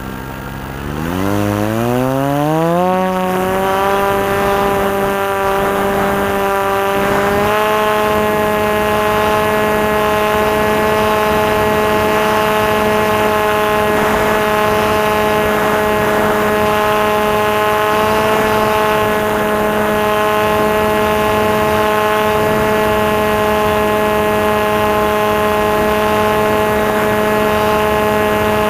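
Electric motor and propeller of a Maxi Swift FPV model plane spinning up, its whine rising quickly in pitch over the first three seconds, stepping up a little more about seven seconds in, then running steadily at high throttle.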